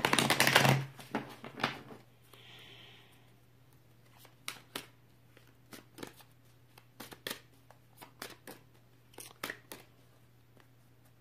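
Cards being shuffled: a quick dense riffle in the first second, then scattered light clicks and taps of cards being handled.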